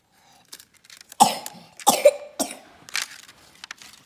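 A person coughing: a few short, sharp coughs in a row, starting about a second in.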